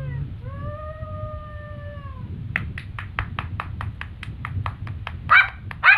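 Conch shell (shankha) blown in long held notes that bend slightly in pitch. About two and a half seconds in, a rapid, even pulsing starts, about six pulses a second, and two loud voiced bursts follow near the end.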